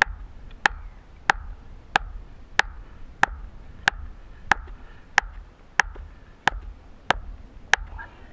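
A hand-held stone hammering the top of a wooden stake, driving it into wet sand: a steady run of about a dozen sharp knocks, roughly one and a half a second.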